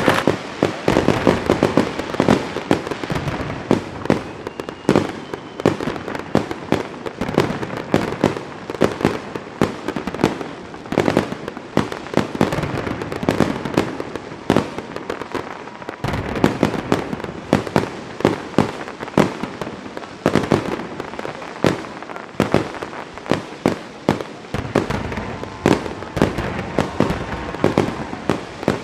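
Fireworks going off in a rapid, irregular barrage of cracks and bangs, several a second, over a continuous crackling background.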